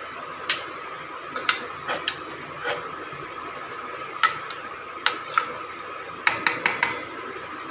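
Metal ladle stirring rice in a steel pressure cooker pot: scattered clinks and scrapes against the pot, with a quick run of ringing taps near the end.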